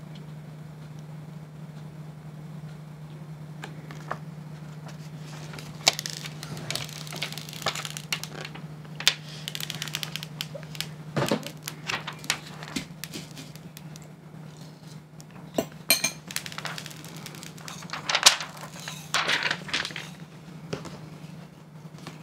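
Plastic screen-protector film being peeled from its backing and handled over a tablet's glass: irregular crinkling and crackling with small clicks and taps, starting a few seconds in. A steady low hum runs underneath.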